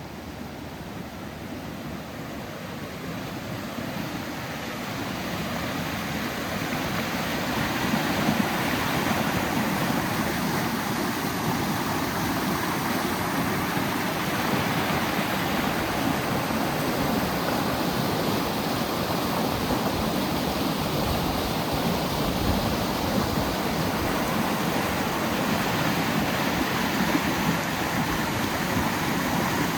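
Rushing creek water, growing louder over the first several seconds, then steady.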